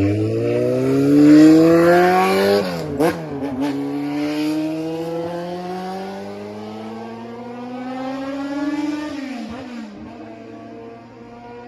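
Kawasaki Z400FX inline-four running through a prototype Kamikaze four-into-one collector exhaust under acceleration. The revs climb, drop sharply with a crack about three seconds in, then climb again in a long pull. Near the nine-second mark the revs fall away and the engine settles at a lower steady note.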